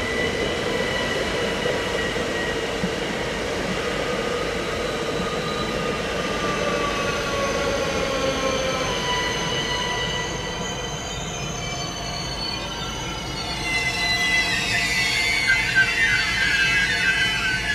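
Train brakes squealing as the train slows, several high tones sliding slowly downward, then a louder, wavering squeal near the end.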